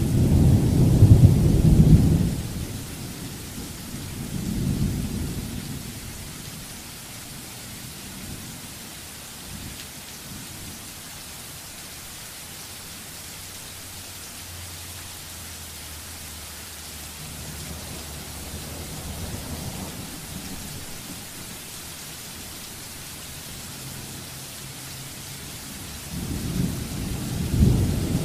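Thunderstorm: steady rain hissing throughout, with rolling thunder. A loud rumble fades out about two seconds in, a second comes about five seconds in, a softer one falls in the middle, and a loud rumble builds near the end.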